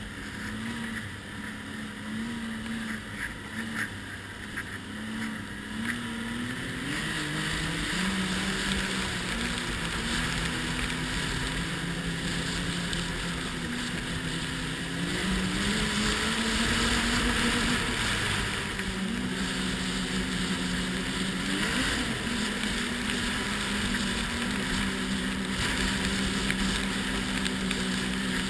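Ski-Doo Renegade 1200 snowmobile's four-stroke three-cylinder engine running on the trail, its pitch climbing several times with the throttle and dipping briefly about two thirds of the way through. Wind rushes over the microphone.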